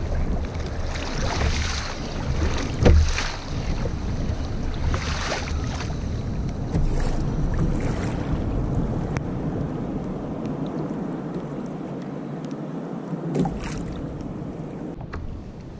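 Wind buffeting the microphone over choppy sea water, with a few short knocks; the loudest knock comes about three seconds in. The wind rumble eases somewhat near the end.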